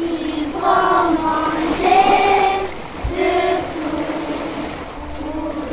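Singing on a music soundtrack: a high voice holds a run of long notes, about a second each, sliding between pitches.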